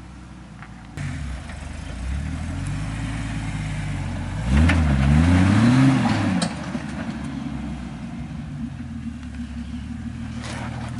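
Jeep TJ Wrangler's engine working up a rock step under load, rising about a second in, then revved hard twice in quick succession, its pitch climbing and falling, before dropping back to a steadier crawl.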